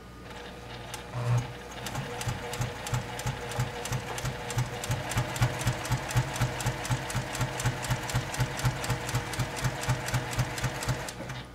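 Domestic sewing machine stitching at a steady pace, about three stitches a second, through many layers of folded quilt fabric and batting. It stops near the end.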